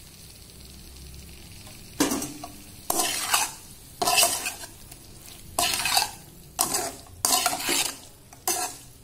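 Slotted metal spatula scraping and tossing chicken and carrot strips around a steel wok, in about seven separate strokes starting about two seconds in. Underneath is a quiet sizzle of the food frying.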